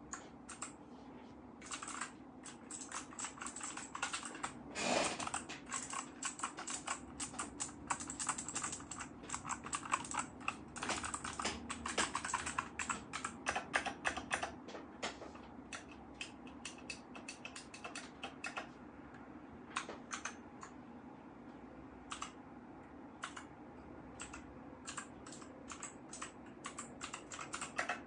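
RK61 60% mechanical keyboard being typed on, its keys clacking in fast runs with one heavier clack about five seconds in. The typing thins to scattered single keypresses in the second half.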